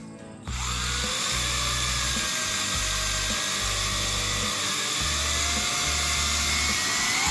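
Toy quadcopter drone's small motors and propellers spinning up to a high, steady whine about half a second in, the pitch wavering as the throttle changes and rising a little near the end.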